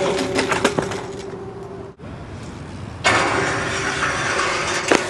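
BMX bike and rider crashing onto concrete at the foot of a stair set, with several sharp knocks and clatters in the first second. After a brief drop-out there is steady noise, then one loud impact near the end as the rider comes down off the rail again.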